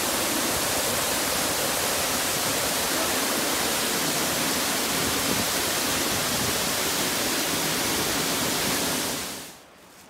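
Waterfall pouring down a rock face into a plunge pool: a steady, loud rush of falling water that cuts off suddenly near the end.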